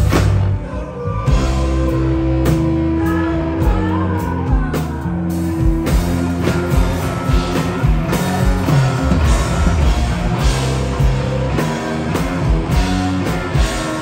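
A live rock band playing electric guitars over a drum kit.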